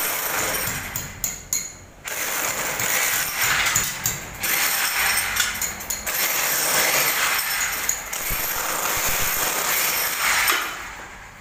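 Handheld power tool working against a plastered masonry wall, running in several long bursts with short breaks and trailing off near the end.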